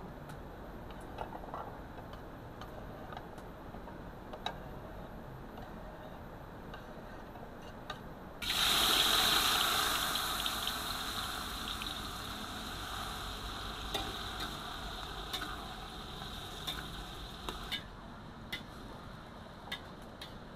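Faint knife taps on a wooden cutting board while beef liver is diced, then diced potatoes frying in hot oil in a wok: a loud sizzle starts suddenly about eight seconds in, slowly dies down and stops a few seconds before the end.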